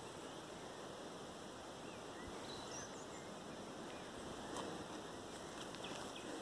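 Forest ambience: a steady, faint rushing background with a few faint bird chirps about halfway through.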